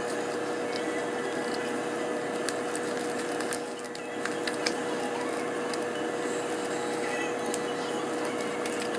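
Steady electrical or mechanical hum with one constant tone, overlaid with scattered small clicks and taps.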